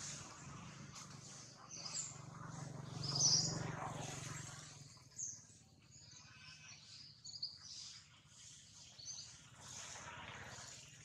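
Small birds chirping here and there, over a low steady rumble that swells about three seconds in and fades by about five seconds.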